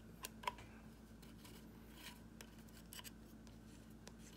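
Faint, scattered small metal clicks and scrapes of a hex key working the screws on an air rifle's frame, over a faint low hum.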